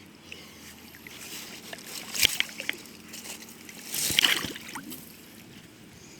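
Water sloshing and splashing in two short bouts, about two seconds in and again about four seconds in, with a few small knocks.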